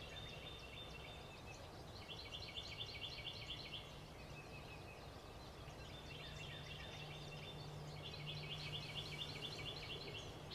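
Small songbirds singing in the woods: four high, fast trilled phrases of about one and a half seconds each, some steady and some in quick separate notes, faint against a low steady background hum.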